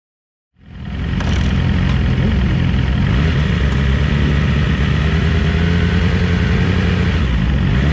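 600-class superbike's engine idling steadily, picked up by the bike's onboard camera; it fades in about half a second in.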